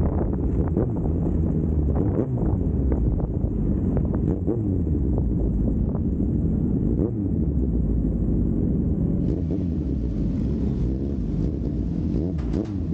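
Superbike engine running, its pitch rising and falling, with wind noise over the microphone.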